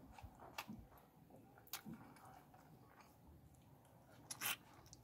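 Faint eating sounds from eating fish curry by hand: a few sharp mouth clicks and smacks, the loudest near the end as a piece of fish goes into the mouth.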